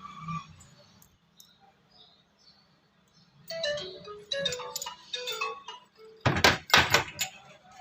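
A tune of short, stepped notes starts about three and a half seconds in, after a few faint clicks. Near the end, several loud knocks cut across it.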